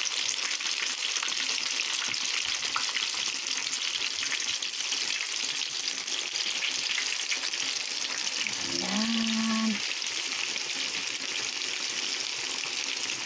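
Flour-coated chicken pieces deep-frying in hot oil in a pan, a steady dense sizzle and crackle. A brief vocal sound comes about nine seconds in.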